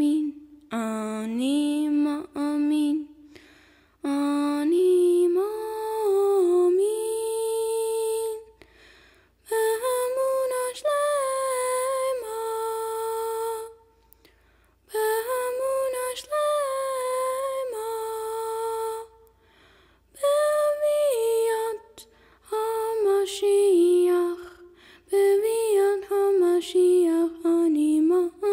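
A woman's voice singing a slow, unaccompanied lullaby-like melody, with long held notes. It comes in phrases of a few seconds with short pauses between them.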